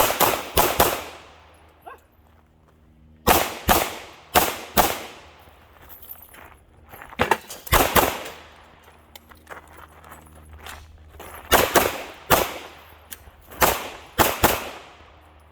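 Gunshots from a firearm in quick strings of two to four, with pauses of a few seconds between strings, each shot trailing a short echo: a timed quick-fire stage of a shooting qualification course.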